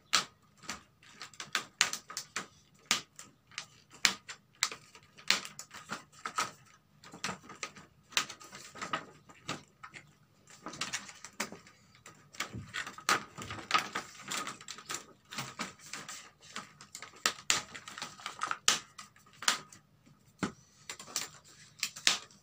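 Thin plastic reflector sheet of an LED TV backlight being handled and pressed down over the LED strips, making irregular sharp clicks and crackles, several a second.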